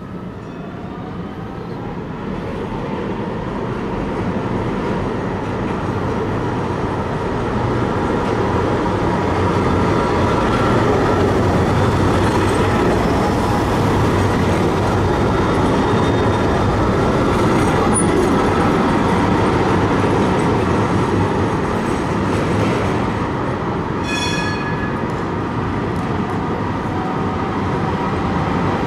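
Eurotram low-floor electric tram running close by: rumble of wheels on the rails and a steady electric whine, growing louder over the first several seconds and then holding. A brief shrill tone sounds about four-fifths of the way through.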